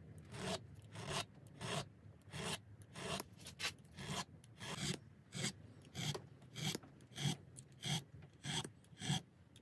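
Small hand file filing the ends of newly installed guitar frets along the edge of the fingerboard, taking off their sharp edges: short scraping strokes repeated about twice a second.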